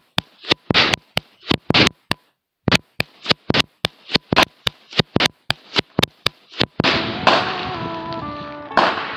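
AR-style semi-automatic rifle fired in quick succession, about two to three sharp shots a second, with a half-second pause a little over two seconds in. From about seven seconds in, music with held notes comes in, with a few louder bangs in it.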